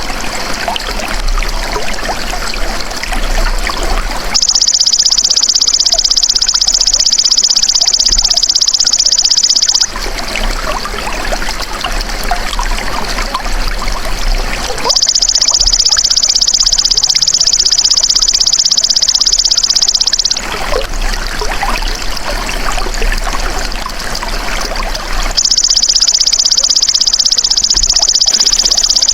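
Belalang emas (golden grasshopper) calling in a rapid, high buzzing trill, in bouts of about five seconds with pauses of similar length, three bouts in all. Water trickles steadily underneath.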